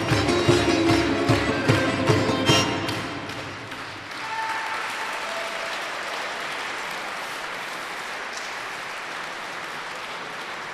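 A folk ensemble with flute and bowed strings plays the last bars of a song over a steady low beat, ending on a sharp final accent about two and a half seconds in. After a brief lull the audience applauds steadily.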